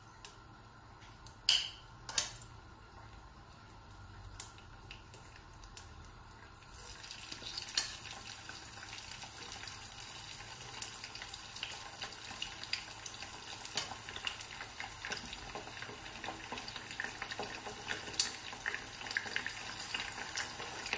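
Chicken pieces frying in hot oil in a frying pan: a faint sizzle that grows into steady crackling from about seven seconds in as more pieces go into the oil. Two sharp clacks of tongs against the pan come near the start.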